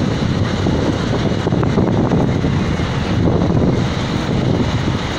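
Steady low rumble of truck engines idling at a drag-strip start line, mixed with wind buffeting the microphone.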